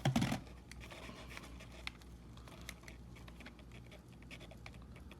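Hands handling a sneaker and its packaging: a brief rustle at the start, then faint scattered clicks and scratches.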